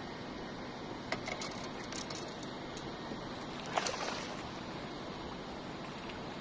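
A large wels catfish splashing as it is slid back into the river over the side of a boat, about four seconds in, after a few light knocks while it is handled. A steady background hiss runs underneath.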